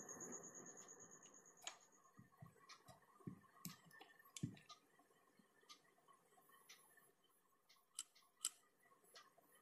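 Faint handling of a metal C-clamp on a small wooden block: a soft scratchy rasp of the clamp being worked that fades out in the first second or two, then scattered light clicks and taps as the clamped block is picked up and turned.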